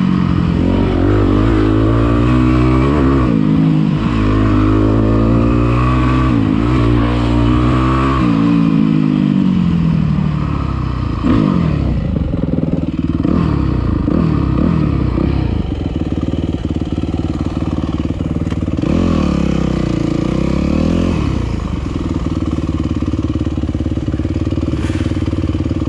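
Dirt bike engine under riding, its pitch rising and falling over and over with the throttle and gear changes for the first ten seconds or so, then running steadier, with one more dip and rise about two-thirds of the way through.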